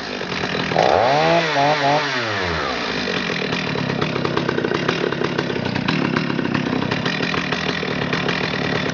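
Stihl 021 chainsaw's 35.2 cc two-stroke engine revved up and back down about twice in the first few seconds, then running at a steady speed.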